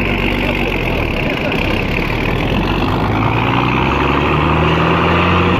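Mercedes-Benz Unimog's diesel engine running as the truck drives along a forest track, heard from the open back of the truck. The engine note rises a little in the second half as it picks up speed.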